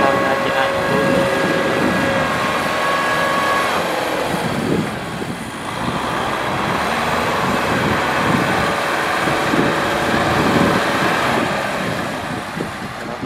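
Farm tractor's diesel engine running hard under load as the tractor struggles through deep mud, with a steady high whine that stops about four seconds in.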